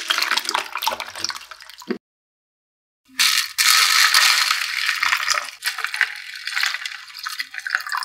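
Water splashing and trickling with a crackly hiss, in two edited stretches separated by about a second of dead silence.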